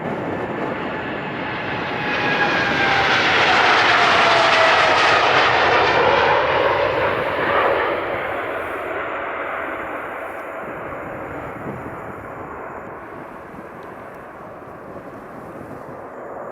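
Jet airliner's engines at take-off power passing by: the roar builds, peaks about five seconds in with a whine falling in pitch, then fades away as the aircraft climbs out.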